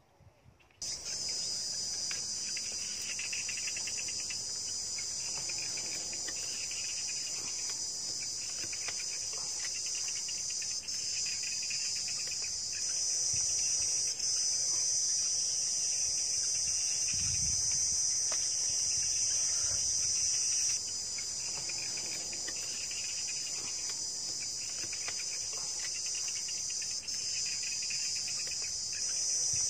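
Dense, steady high-pitched insect chorus that starts abruptly about a second in, with a softer, lower insect call pulsing about once a second behind it. A brief dull low thump comes about two-thirds of the way through.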